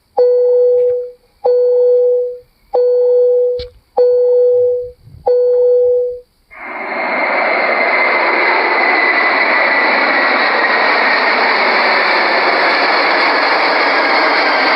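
Five identical electronic chime tones at one pitch, evenly spaced about 1.3 s apart. A steady rushing noise of an airliner cabin with a faint high engine whine then sets in about six and a half seconds in and holds.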